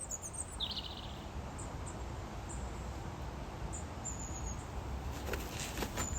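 Outdoor garden ambience with a steady low rumble, and small birds giving a few short, high chirps. A few soft knocks near the end.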